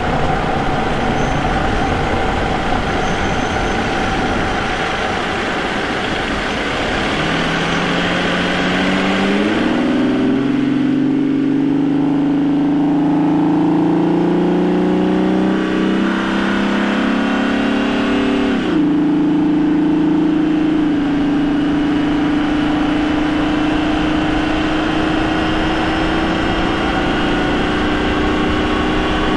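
Vauxhall Omega's 3.2-litre 24-valve V6, heard from the engine bay beside a K&N air filter. At first it is a steady cruise mostly covered by road noise. About a quarter of the way in, the engine note rises as the car accelerates, jumps up once as the automatic gearbox shifts down, and keeps climbing. Past the middle it drops sharply at an upshift and settles to a steady cruising note.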